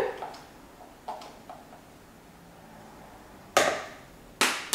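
A metal teaspoon clinking faintly, then knocked sharply twice near the end, each knock ringing briefly, while cinnamon is spooned out of a spice jar into a mixing bowl.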